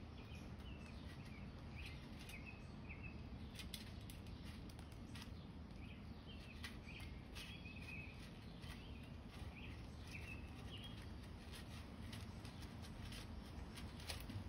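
Faint, irregular clicks and crackles of a fox squirrel crunching through a tray of seed and cracked corn, with small birds chirping now and then in the background.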